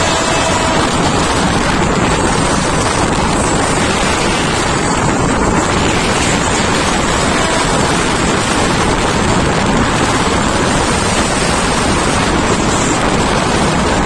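Loud, steady rush of wind buffeting the microphone, mixed with the running noise of a moving passenger train, heard from an open carriage window.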